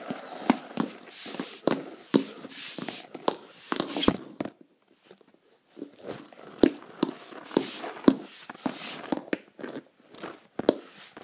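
Clip-clop taps imitating a horse's hoofbeats as a toy horse is played along: about two sharp taps a second, stopping for about a second midway and then going on.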